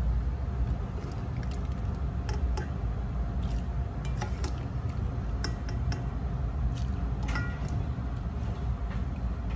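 Kitchen utensils and dishes clinking now and then, with one brief ringing clink near the end, over a steady low rumble.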